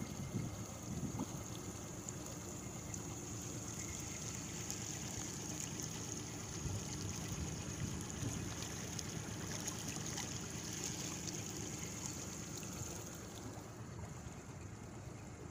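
Water trickling and lapping around a small boat on a river, with a steady high hiss over it.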